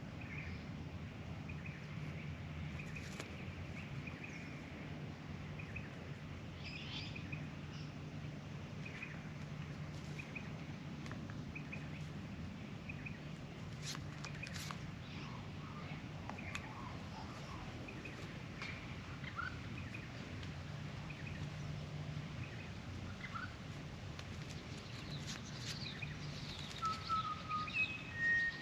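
Backyard bird calls: scattered short chirps throughout, a few sharp clicks around the middle, and several clear whistled notes near the end, over a steady low background hum.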